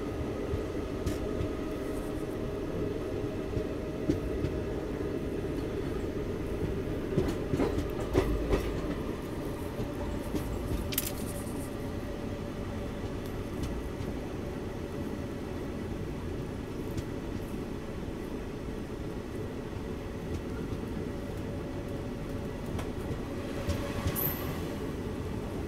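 Indian Railways passenger coach running along the track, heard from the coach doorway: a steady rumble of wheels on rail with a steady hum. A few sharp clicks come in the first half, and a brief high squeak comes near the end.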